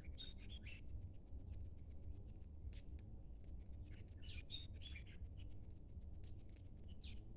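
Ducklings peeping in three short bursts of quick falling chirps, over an insect's fast, high, even pulsing trill that breaks off for about a second partway through.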